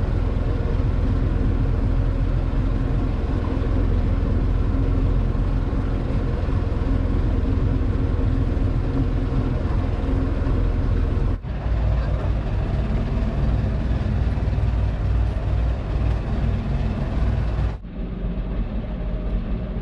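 Fishing boat's engine running steadily, a low drone under a hiss of sea and wind. The sound breaks off sharply twice, about eleven seconds in and near the end, and each time comes back a little different in tone.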